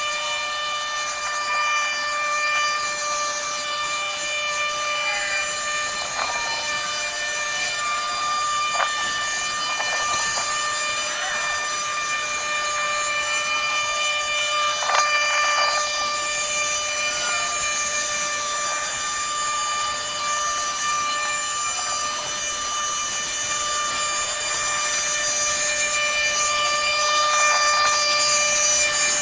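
A machine running steadily at constant speed, giving a high, unchanging whine with overtones.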